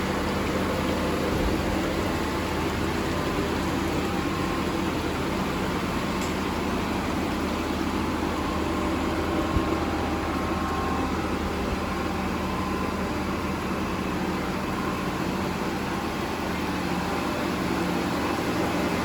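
Bottero Variant 810BCS vertical straight-line glass edging machine running with a steady mechanical hum, and one short knock about halfway through.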